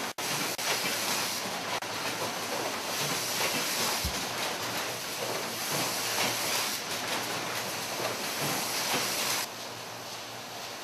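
Needle assembling machine running: a steady hiss and clatter of automated machinery. It drops a little in loudness near the end.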